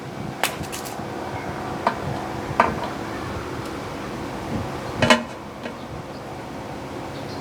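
A few sharp metallic clinks and taps, four in all with the loudest about five seconds in, as hand tools knock against the engine's metal and plastic parts while the old primer bulb is worked out, over a steady low hum.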